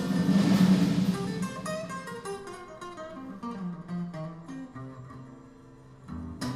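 Acoustic guitars playing without singing: a loud strummed chord, then single picked notes that fade steadily, with sharp strummed strokes starting again near the end.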